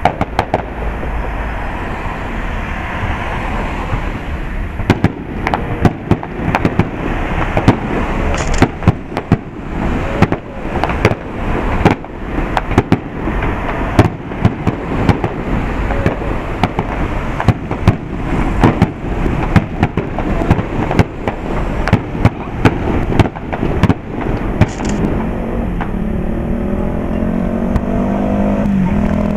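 Aerial fireworks display: shells bursting in rapid succession, dozens of sharp bangs and crackles over a steady background din. The bangs thin out near the end, where a rising whine comes in.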